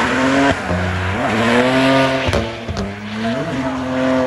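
Drift car sliding sideways: its engine revving high, the pitch climbing, holding and dropping several times as the throttle is worked, over the screech of spinning rear tyres. Two sharp cracks near the middle.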